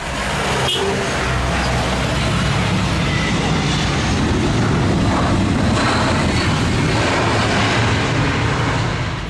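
Steady aircraft engine noise, a loud even rush over a low rumble, with a short click about a second in.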